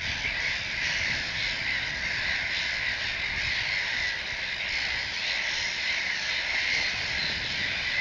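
A large colony of gulls calling all at once: a dense, steady clamour of many overlapping calls, with a low rumble underneath.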